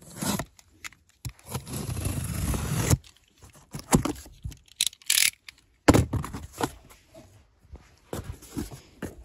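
Box cutter slicing along the taped seam of a cardboard parcel, a scraping stretch of about a second and a half, then the cardboard flaps being pulled open with a few sharp knocks and rustles.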